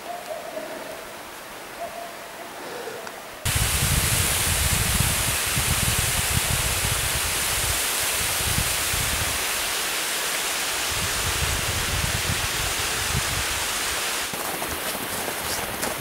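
Rushing water of a mountain stream below the Spumoasa waterfall, a loud, steady rush that starts abruptly about three and a half seconds in after a quieter opening. A few crackles come near the end.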